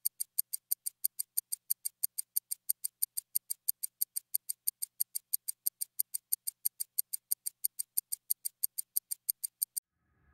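Rapid, even, high-pitched ticking, about five ticks a second, that stops suddenly near the end.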